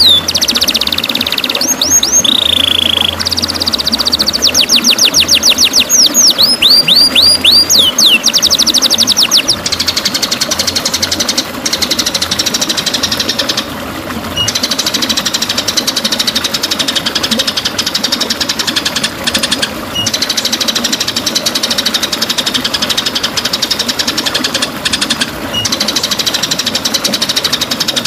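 White-rumped shama singing: fast runs of sweeping whistled notes for about the first nine seconds, then a rapid, even rattling trill, over a constant background hiss.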